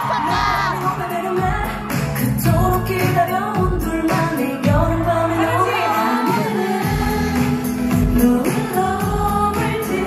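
A woman singing a K-pop song into a handheld microphone over a loud pop backing track with a steady beat.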